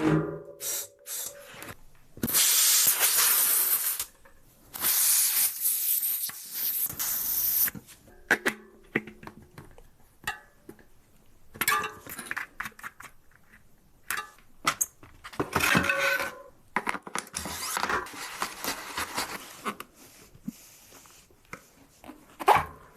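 Bursts of hissing, each one to three seconds long, with clicks and knocks of handling in between.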